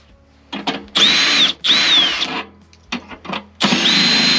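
Cordless drill with a 3/8-inch nut-driver bit backing out the bolts on a blower motor's mounting bracket. It spins up in three short runs, the motor whine rising at the start of each. The last run is the longest.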